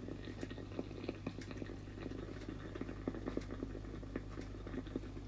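Electric facial steamer running, water boiling inside it with irregular small bubbling pops over a steady low hum.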